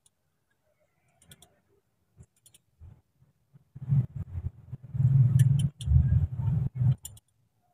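Ratchet and socket worked on the alternator mounting bolts, with a few sharp metal clicks and clinks. About four seconds in comes a louder stretch of low, uneven rumbling and knocking from tool and hand handling around the engine bay, which dies away near the end.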